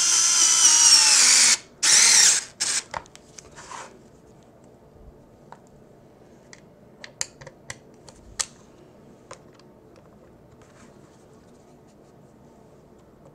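Small cordless electric screwdriver driving a screw into a plastic battery-pack case: the motor whines for about a second and a half, its pitch falling as it slows under load, then runs again briefly. A scatter of light clicks follows.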